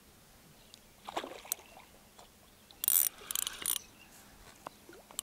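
Short bursts of water splashing as a hooked fish is brought in, the loudest lasting about a second around three seconds in.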